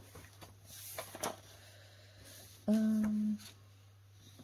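A woman's short, level 'hmm' hum lasting under a second, a little past halfway, after faint rustling and light clicks about a second in. A low steady electrical hum runs underneath.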